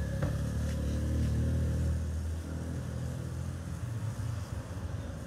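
A motor vehicle engine running at low revs nearby, a low steady hum. It is loudest for the first couple of seconds, then fades.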